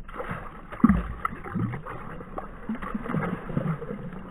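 Water splashing and sloshing with handling knocks as a brook trout is released back down a hole in the ice, a sharp knock about a second in being the loudest.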